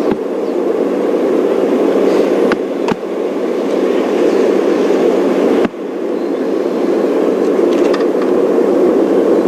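Safari game-drive vehicle driving: a steady, loud engine and road rumble, with a brief drop in level a little past halfway.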